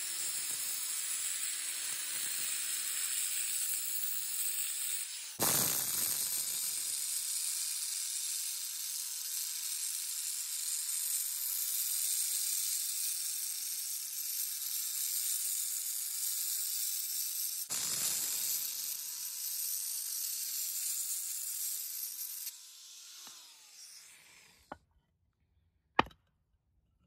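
Corded 4 1/2-inch angle grinder with a Norton diamond masonry blade cutting through a concrete paver cap: a steady high grinding hiss over the motor's whine. The motor winds down with a falling whine a few seconds before the end, and a single sharp knock follows shortly after.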